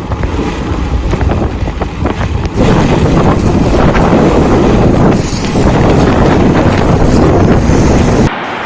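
Heavy wind buffeting the microphone over loud rushing floodwater. The noise grows louder about two and a half seconds in, and near the end it drops suddenly to a quieter steady rush.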